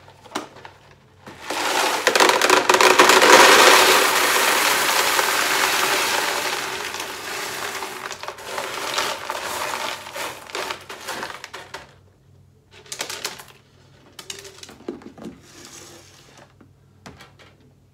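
Expanded clay pebbles (hydroton) poured from a plastic tub into a plastic grow-bed bucket: a dense rattling clatter starts about a second and a half in, is loudest at first and thins out over about ten seconds. A few scattered clicks and knocks follow near the end.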